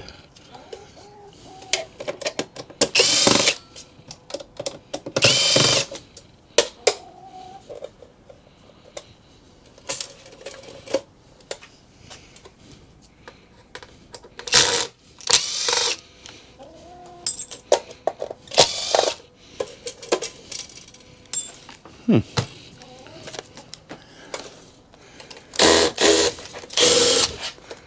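Cordless drill-driver whirring in short bursts, several times over, on the screws holding a desktop PC's power supply; the screws are soft and stripping rather than coming out. Light metallic clicks and clinks of the steel case and parts being handled in between.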